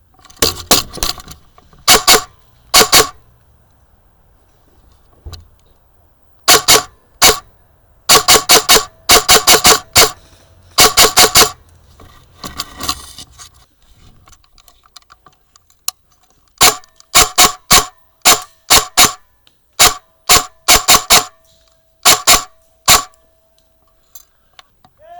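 Airsoft gun firing sharp shots, some single and some in quick strings of several. The strings come in clusters with pauses between them.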